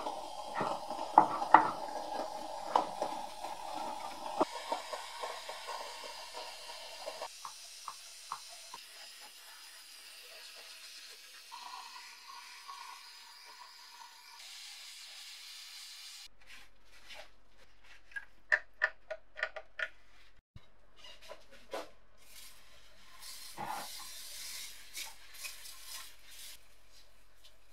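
Scraping and brushing on the painted metal body of an old scale in a plastic tub, a dense rasp with sharp ticks that dies away after about four seconds. A long quieter stretch with a faint hiss follows. Later come scattered sharp clicks and taps of the wet metal part against the plastic tub.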